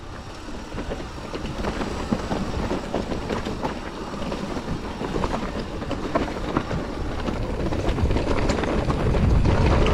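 Mountain bike rolling down a rocky trail: tyres crunching over stones, with the chain and frame rattling in a rapid, irregular clatter that grows louder near the end.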